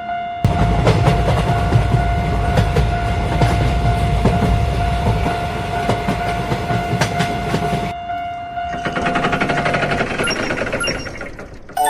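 A train passing: a loud rumble with clacking wheels begins about half a second in and lasts about eight seconds, with a steady high tone held above it. It then thins to a lighter rattle before fading near the end.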